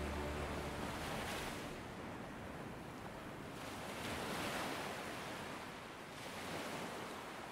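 Ocean surf washing in, the wave noise swelling and falling back three times.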